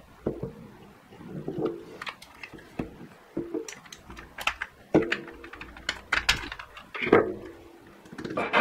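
Hard 3D-printed plastic parts clacking and knocking as they are handled, fitted together and set down on a tabletop: a run of irregular sharp clicks and taps, a few with a short hollow ring.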